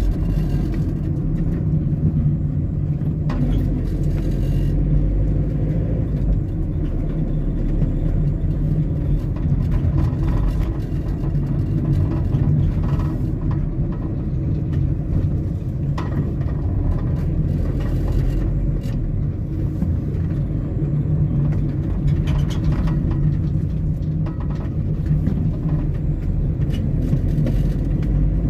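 Steady low rumble of a car on the move, road and engine noise with no music or speech.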